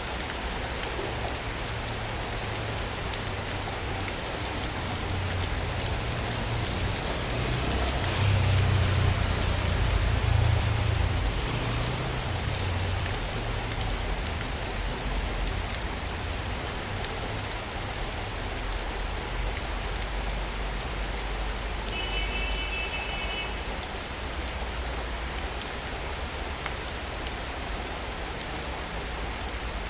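Steady rain falling and pattering on surfaces. A low rumble swells and fades about a third of the way in, and a brief high-pitched tone sounds about three quarters of the way through.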